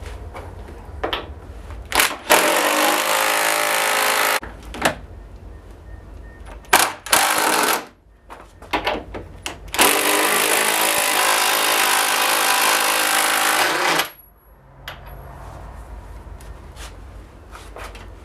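Cordless impact driver hammering as it drives mounting bolts into a workbench, in three runs: one about two seconds in, a short one near the middle, and the longest from about ten to fourteen seconds in, with knocks of handling between.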